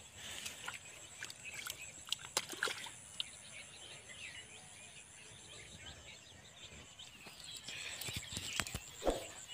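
Scattered small splashes and squelches of hands and bare feet in shallow muddy water, over birds chirping and a thin steady high tone.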